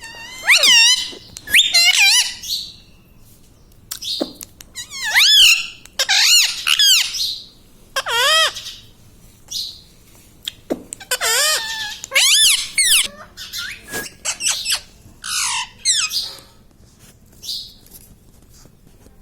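Indian ringneck parrot giving a string of loud, high squawking calls, a dozen or so with short gaps between them, many with a wavering, up-and-down pitch.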